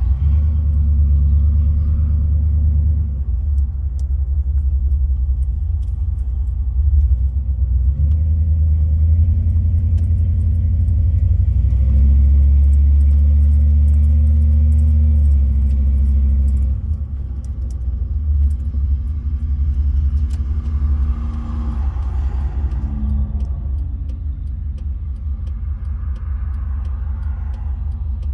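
Dodge pickup truck driving, heard from inside the cab: a steady low engine and road rumble. It grows louder for a few seconds around the middle, then eases off suddenly.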